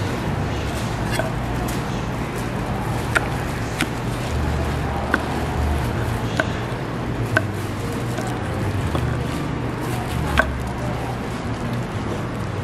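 Kitchen knife chopping sundae (Korean blood sausage) and boiled offal on a wooden cutting board: about half a dozen sharp knocks at irregular intervals, over a steady low background noise.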